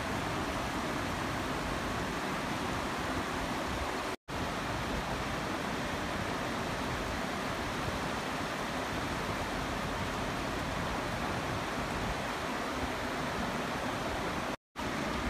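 River water rushing steadily over rocks and a low weir, broken by two brief dropouts to silence, about four seconds in and near the end.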